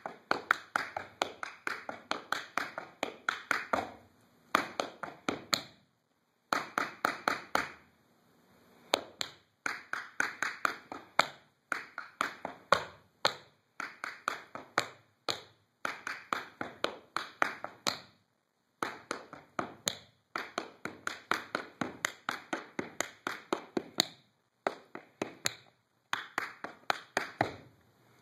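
Tap shoes striking a wooden dance floor in quick runs of sharp taps: brushes, heels, toes and hops danced without music, in short phrases broken by brief pauses.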